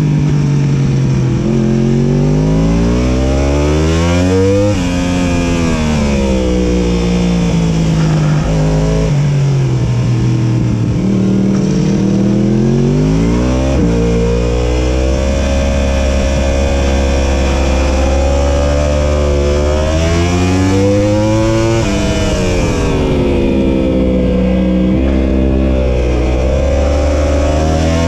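Yamaha YZF-R1's crossplane inline-four engine, heard from a camera mounted on the bike, pulling up through the revs, dropping sharply at the gear changes, and falling away as it slows for corners, with a steadier stretch at high revs in the middle.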